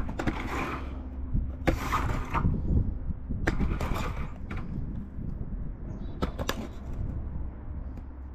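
Snap-lock punch crimping tabs into the cut edge of a vinyl siding panel: a series of sharp clicks spread over several seconds, with rustling as the vinyl panel is handled.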